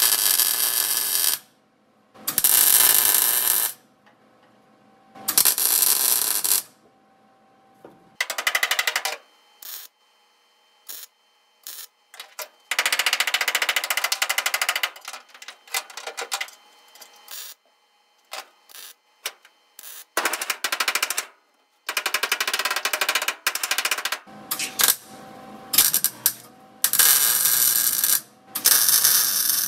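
MIG (wire-feed) welder arc crackling as it lays tack welds into a 1965 VW Beetle's sheet-steel heater channel. It comes in a dozen or so bursts of one to three seconds with silence between, a few very short blips around the middle, and a longer run of about three seconds.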